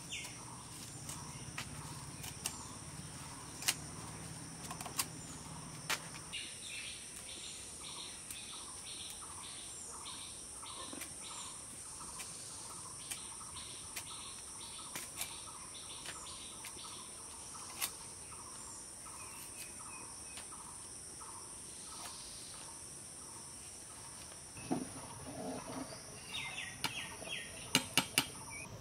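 Steady high buzzing of insects with a repeating chirp about twice a second, and scattered sharp snaps as amaranth stems are cut on a boti, a fixed curved blade. A busier run of snaps and rustling comes near the end.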